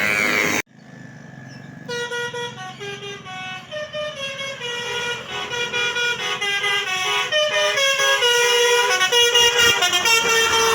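Bus 'telolet' multi-tone air horn (Basuri type) playing a rapid tune of short stepped notes, starting about two seconds in. Before it, a loud rushing noise cuts off abruptly about half a second in.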